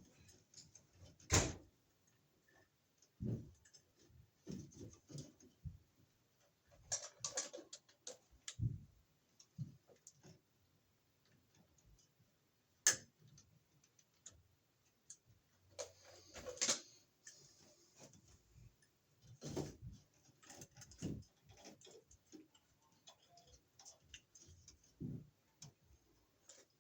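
Irregular clicks, taps and brief scrapes of hands working small electrical parts and tools, with two sharp clicks, one about a second in and one near the middle, louder than the rest.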